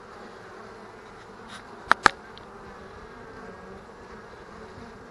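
Honey bees buzzing steadily around an open hive during a bee-package installation, with two sharp clicks close together about two seconds in.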